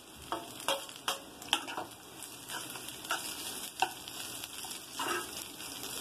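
Chopped capsicum and onion sizzling in hot oil in a kadai, with sharp clacks and scrapes of a utensil against the pan as the vegetables are tipped in and stirred. The clacks come thick in the first couple of seconds, then only now and then over the steady sizzle.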